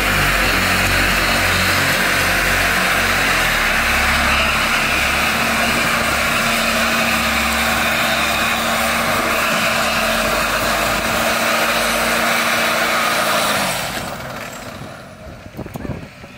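Pickup truck doing a burnout: the engine is held at steady high revs while the rear tyres spin and screech on the asphalt, throwing smoke. About fourteen seconds in the throttle is lifted, the engine note drops and the sound falls away.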